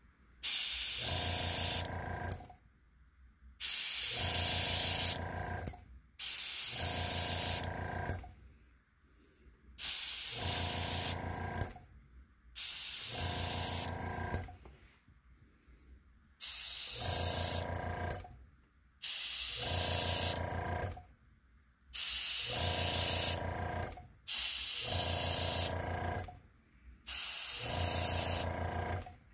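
An airbrush spraying paint in about ten short bursts of roughly two seconds each: a hiss of air, with the low hum of a small compressor running alongside each burst.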